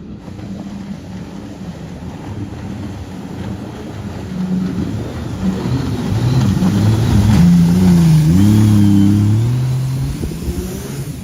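Mini jet boat's engine running hard on a pass back through floodwater, growing louder as it approaches about halfway in, its pitch rising and dipping at the loudest point, then fading as it moves away.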